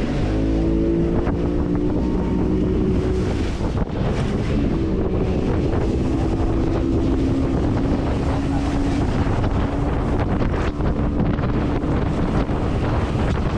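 Outboard motor of a small fiberglass boat running under way, its pitch climbing slightly at the start and then holding steady, fainter in the last few seconds. Heavy wind buffets the microphone, with the wash of surf around the hull.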